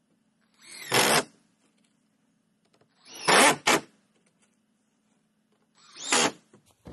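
Cordless drill driving screws through a 2x4 into old barn-wood boards: three short bursts, each with the motor whirring up in pitch as the screw goes in.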